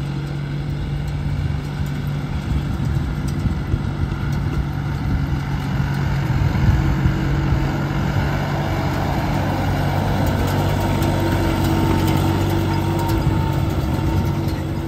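Tractor diesel engine running steadily, getting a little louder in the first couple of seconds and then holding.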